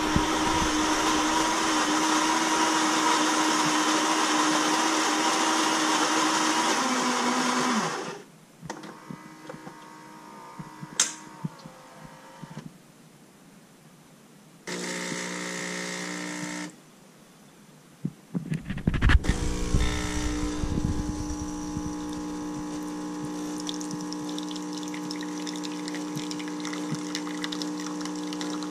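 Saeco Intelia HD8752 bean-to-cup espresso machine running a brew cycle. Its built-in grinder runs steadily for about eight seconds, dropping in pitch just before it stops. After some clicks, the freshly fitted Ulka EAP5 vibratory pump buzzes for about two seconds, then stops. A few more clicks and a thump follow, and from about nineteen seconds the pump hums steadily as coffee is pumped through.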